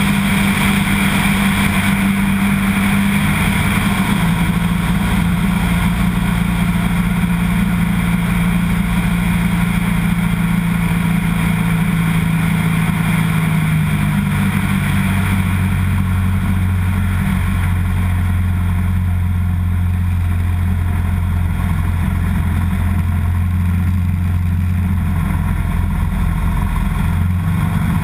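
Light floatplane's piston engine and propeller droning steadily with wind rushing past. The engine note steps down twice, about 4 s and about 15 s in, as power comes back on the approach to a water landing. Right at the end the floats meet the water.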